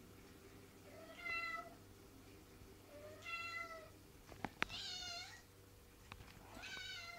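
Domestic cat meowing four times, each meow under a second long and about two seconds apart, demanding to be let out into the garden. Two sharp clicks come just before the third meow.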